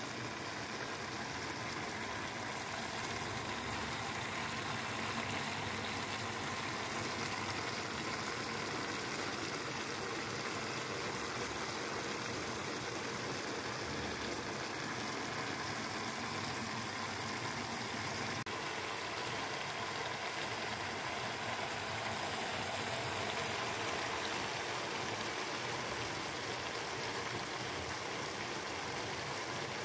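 Minced meat, diced potatoes and carrots simmering in broth in a wok: a steady, even bubbling.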